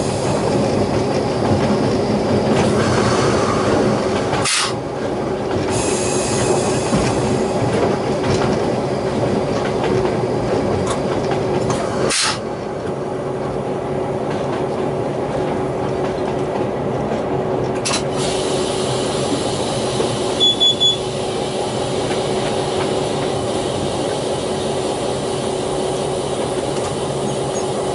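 DQ-class diesel-electric locomotive running under load at the head of a loaded ore train: a steady engine drone with wheel-on-rail noise. Two sharp knocks come about a sixth and about two-fifths of the way in, and three short high beeps about three-quarters of the way through.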